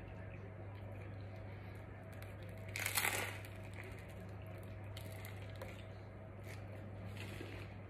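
Close-up eating sounds: one loud crunchy bite into pizza crust about three seconds in, then a few quieter crunches of chewing, over a steady low hum.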